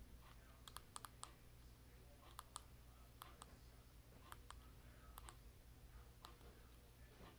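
Near silence: a steady low hum with scattered faint, irregular clicks, some in quick pairs.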